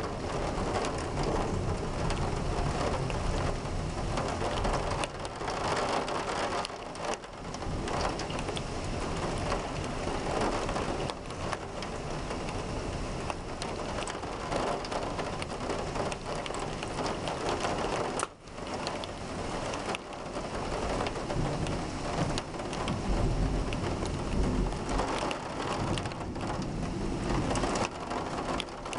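Steady heavy rain pouring down during a thunderstorm, with thunder rumbling low underneath, strongest late on.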